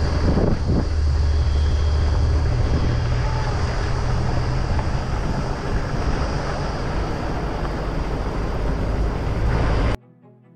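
A 4x4 driving on a sandy gravel track: steady engine and tyre rumble with wind buffeting the microphone. About ten seconds in it cuts off abruptly and faint string music takes over.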